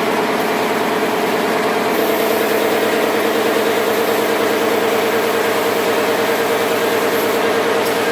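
A motor-driven machine running steadily, with a strong, even, mid-pitched hum and fine rapid pulsing.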